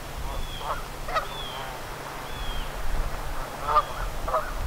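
Geese honking in short calls, a few in the first second and more again near the end, with a small bird's thin, high whistled notes about once a second.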